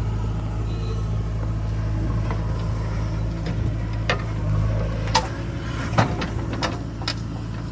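Diesel engine of heavy earthmoving machinery running steadily, with about five sharp metallic clanks in the second half.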